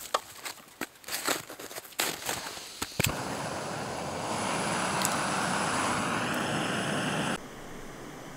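A gloved hand crunches into packed snow in uneven strokes. After about three seconds comes a sharp click, and a small isobutane canister backpacking stove starts hissing steadily as its burner is lit with a lighter, getting a little louder a second later. The hiss cuts off suddenly near the end.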